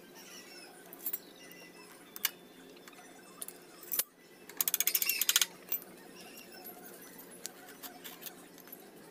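Metal hand tools clinking and knocking against a Honda XRM125's swing arm during its removal: a few single knocks, then a fast rattling run of clicks lasting about a second near the middle. Faint high chirps in the background.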